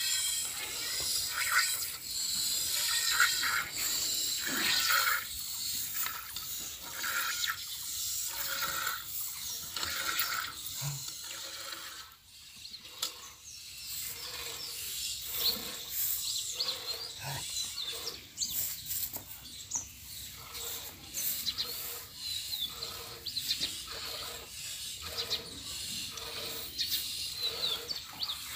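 Milk squirting into a metal pail as a cow is milked by hand, a steady rhythm of squirts a little over one a second, each with a slight ringing note from the pail. Birds chirp in the background in the second half.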